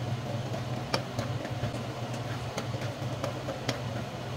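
Spoon stirring a simmering curry in a nonstick frying pan, with scattered light clicks of the spoon against the pan, one sharper about a second in. Under it runs a steady low hum.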